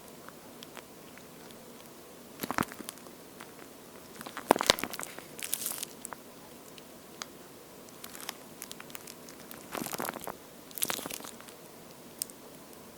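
A water-textured squishy toast toy being squeezed and handled close to the microphone. It gives crackly, squishing bursts of sound in several separate spells with short quiet gaps.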